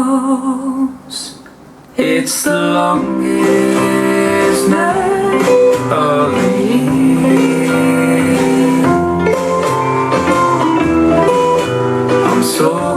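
Guitar-led song played back through Mission 760i SE two-way bookshelf speakers. The music drops away briefly about a second in and comes back in full at two seconds.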